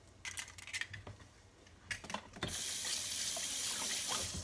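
A kitchen tap running into the sink, turned on about halfway through and shut off near the end, with hands being rinsed under it. A few light clicks and knocks come before it.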